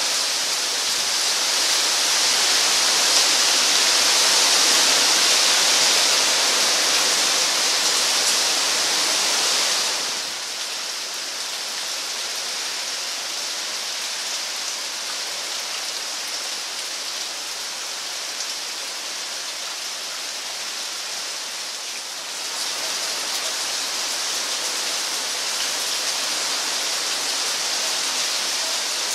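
Heavy hurricane rain pouring steadily in a dense hiss. It drops abruptly to a softer rush about ten seconds in and comes back louder about twenty-two seconds in.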